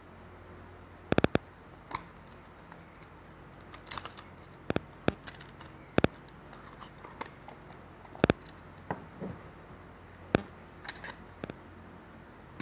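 Plastic audio cassette case opened and the cassette taken out and handled. There are sharp plastic clicks and clacks: a quick run of three about a second in, then single clicks scattered through the rest.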